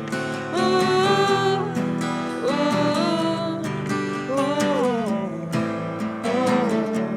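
Strummed acoustic guitar with a wordless sung melody gliding over it, in several phrases.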